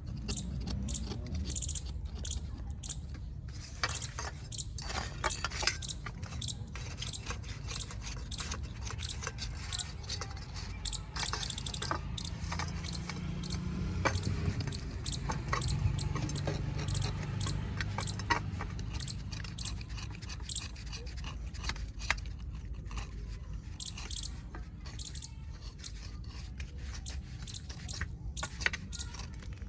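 Pieces of a baked clay kulhad cup being bitten and chewed: a long run of sharp, irregular crunches.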